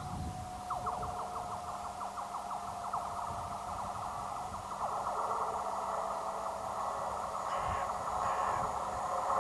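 Approaching electric freight locomotive on a curve, its wheels squealing against the rails in a high, wavering screech full of quick chirps over a low rumble, growing louder as it nears.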